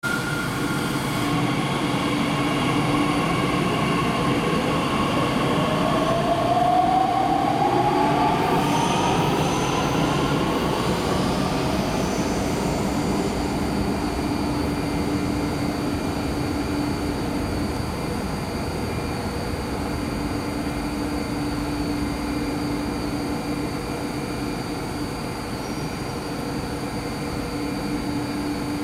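DB class 442 (Bombardier Talent 2) electric S-Bahn train standing at an underground platform, its equipment giving a steady hum over a rumbling background. A rising electric whine climbs from about four to twelve seconds in.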